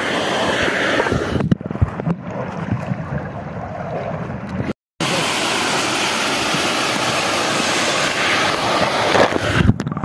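Waterfall pouring into its plunge pool: a steady, loud rushing of falling water. About a second and a half in it turns dull and muffled with a few low knocks and sloshes. After a brief break near the middle the full rushing returns, then goes muffled again just before the end as the phone dips under the surface.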